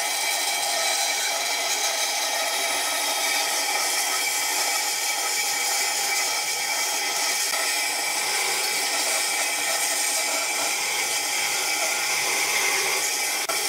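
Band saw running steadily, its blade cutting along a curve through a thick wooden board.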